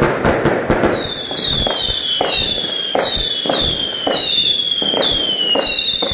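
Fireworks going off in quick succession. A dense crackle gives way about a second in to a run of whistles, each falling in pitch, about two a second, with sharp bangs between them.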